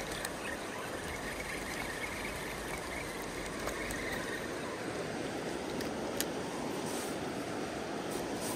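Steady rush of a fast, high river running past the bank, with a few faint clicks.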